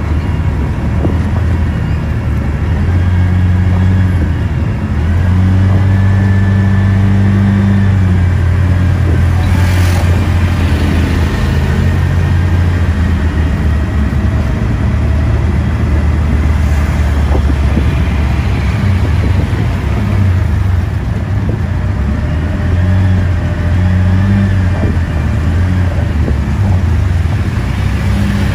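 Steady low engine drone of a vehicle riding through city traffic among motorbikes and auto-rickshaws, rising and easing a little as it speeds up and slows, over a haze of road and tyre noise.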